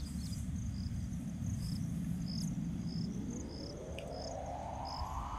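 Crickets chirping in short, evenly spaced pulses at two alternating pitches, over a steady low rumble. From about halfway through, a tone rises steadily in pitch.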